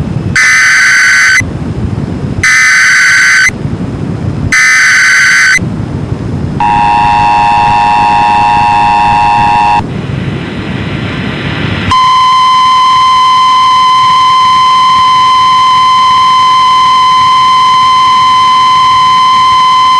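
Emergency Alert System broadcast signal: three short bursts of screeching digital header data, then about three seconds of the two-tone EAS attention signal. After a brief gap, a single steady, piercing alert tone sounds for about nine seconds, the weather-radio warning tone that comes before the spoken flash flood warning.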